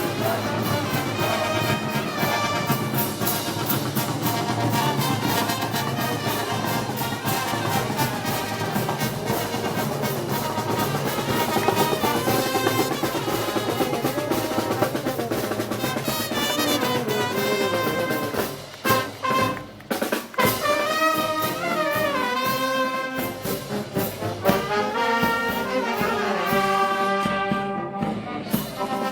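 Festival brass band music of the kind played for Moros y Cristianos: trumpets and trombones carrying the melody over percussion. The sound drops out briefly a few times about two-thirds of the way through.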